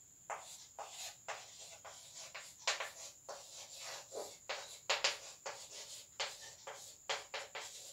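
Chalk writing on a chalkboard: a quick irregular run of short sharp taps and scrapes as letters are written stroke by stroke.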